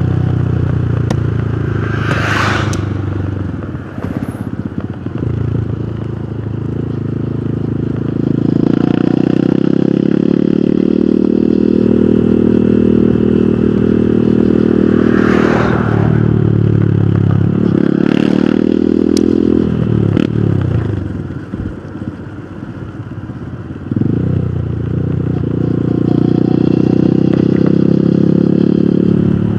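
Hero Hunk motorcycle's single-cylinder four-stroke engine running on the road, its revs climbing and dropping with gear changes. It eases off about twenty seconds in, then picks up again a few seconds later.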